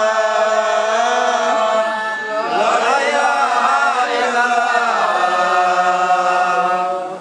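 Several men's voices together chanting an Islamic dhikr in long, held notes. The chant eases briefly about two seconds in, picks up again, and drops off just before the end.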